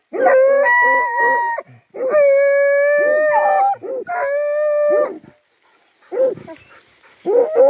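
Hunting hound baying at the hole where a paca has gone to ground. It gives three long, drawn-out howls in the first five seconds, then softer short yelps, and starts another howl near the end.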